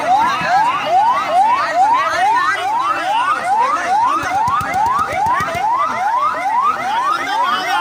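Emergency vehicle sirens in a fast yelp, each note a rising sweep, repeating about three times a second without a break.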